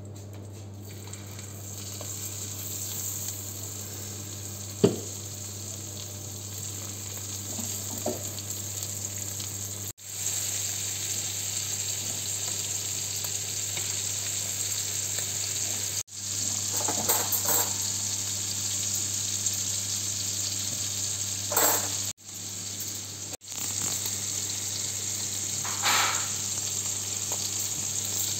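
Duck breasts sizzling steadily as they fry in foaming butter in a frying pan, with a few sharp taps and clinks of tongs and a spoon against the pan, the loudest about five seconds in. The sizzle drops out abruptly for a moment several times.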